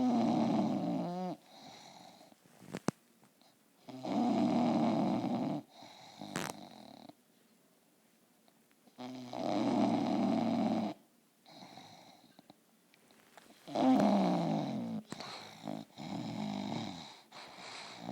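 Sleeping bulldog snoring: four loud snores, each a second or two long, come about every four to five seconds, with softer breaths in between.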